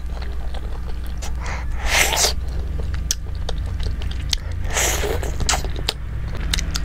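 Close-miked chewing of a handful of rice and chicken curry eaten by hand, with short wet mouth clicks and two loud noisy bursts about two and five seconds in. A steady low hum sits underneath.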